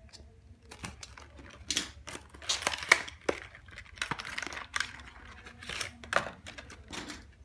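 Trading-card deck packaging being handled: a cardboard box and a foil-wrapped card pack crinkling and rustling, with irregular sharp clicks and taps, loudest about three seconds in.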